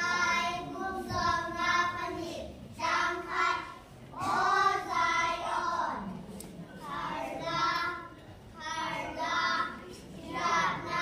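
A group of young children singing together in unison, in short phrases of one to two seconds with brief pauses between them.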